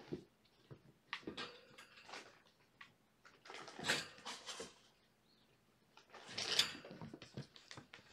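Irregular scuffling and rustling with scattered light knocks, from kittens scampering and play-fighting on the floor, with the loudest flurries about four seconds in and again near six and a half seconds.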